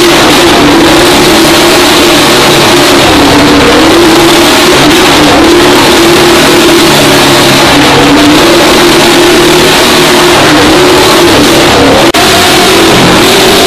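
Small engines of motorcycles and a kart running hard as they ride the wooden wall of death, very loud throughout, the pitch rising and falling over and over as they circle. The sound breaks off for an instant near the end.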